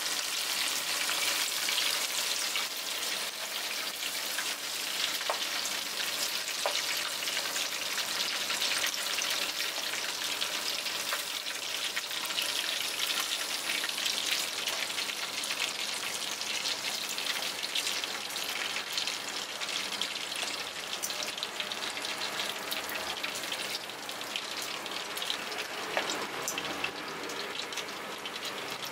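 Small whole crabs deep-frying in a pot of hot oil: a steady crackling sizzle with scattered small pops.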